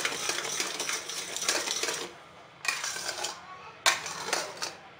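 Metal spoon scraping and clinking against a metal kadhai in quick, continuous strokes while stirring thick, bubbling jaggery syrup cooked down for chikki. The stirring stops briefly about two seconds in and again about three and a half seconds in, and there is a sharp knock just before four seconds.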